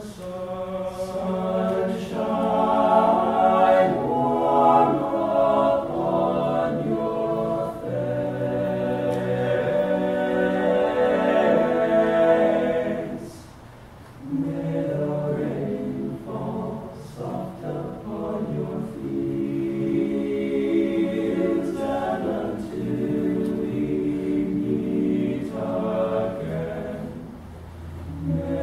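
All-male a cappella group singing in close harmony, held chords of unaccompanied voices, with a short breath between phrases about halfway through.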